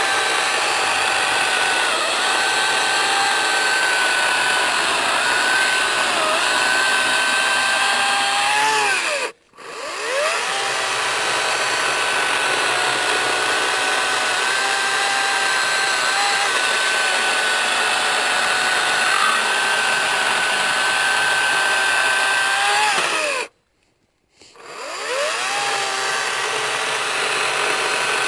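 Echo DCS-5000 56V battery chainsaw cutting through logs at full speed, a steady high electric whine of motor and chain. It is stopped twice, about nine seconds in and again about 23 seconds in, the whine falling away each time and rising again as the trigger is pulled.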